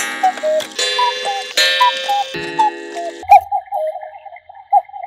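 Black Forest cuckoo clocks calling one after another, about one a second. Each gives a two-note cuckoo call, high then lower, with a ringing tone behind it. About three seconds in, a quieter, warbling repeated tone takes over.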